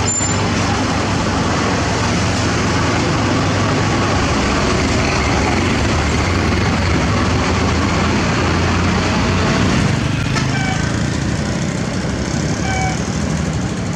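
A heavy diesel engine running steadily with a low drone, and short high chirps from about ten seconds in.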